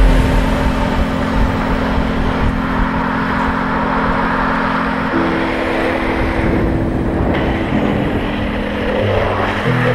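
A downhill longboard run at speed: wind rushing over the camera microphone and urethane wheels rolling on asphalt. Under it are steady low humming tones that shift in pitch a few times, about halfway through and again near the end.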